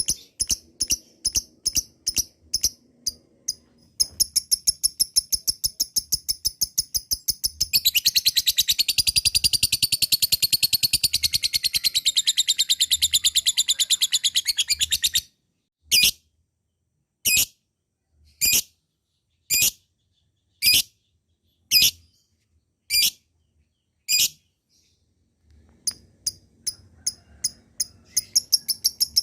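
Lovebird ngekek: high, rapid chattering of repeated chirps, sustained for about eleven seconds. It then breaks into single sharp chirps about once a second, pauses briefly, and starts the fast chatter again near the end.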